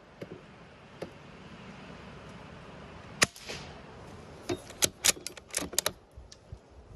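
A single shot from a Bergara BMR .22 LR bolt-action rifle about three seconds in, with a short ring after it. It is followed by a quick run of metallic clicks as the bolt is worked to chamber the next round.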